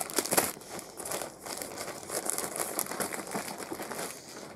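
Plastic shopping bag and packaging rustling and crinkling as items are pulled out and handled, with a few sharper crackles near the start.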